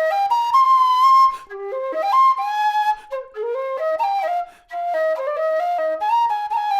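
Nightingale low whistle, with an aluminium body and plastic head, playing a quick melody that darts up and down with rapid grace-note flicks, broken by short breaths.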